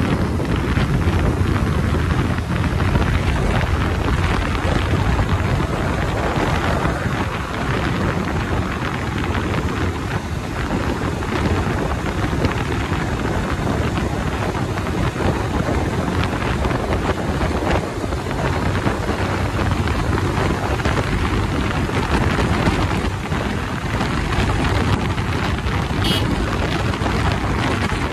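Heavy wind noise on the microphone over the steady drone of a Bajaj Pulsar 220's single-cylinder engine, cruising at highway speed.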